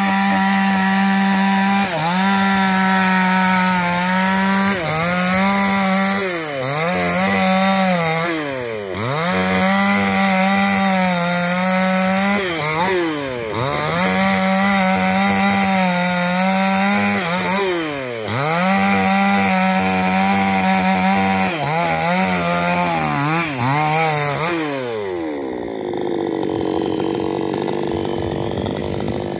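Two-stroke New West chainsaw running at full throttle while cutting a coconut palm trunk, its pitch dipping and recovering again and again, then falling away to a steady idle about 25 seconds in.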